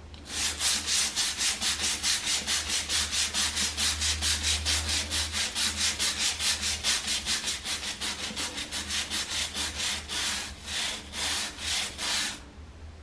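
Grout brush scrubbing shower tile grout in quick back-and-forth strokes, about four a second, slowing to about two a second near the end before stopping.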